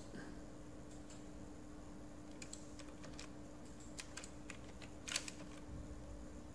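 A few scattered computer keyboard and mouse clicks, short sharp taps with gaps between them, the loudest about five seconds in, over a faint steady hum.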